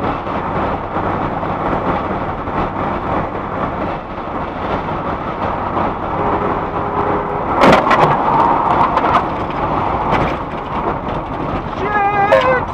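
Steady road and engine noise inside a car travelling at highway speed. A sharp knock sounds about eight seconds in, and a brief wavering squeal comes near the end.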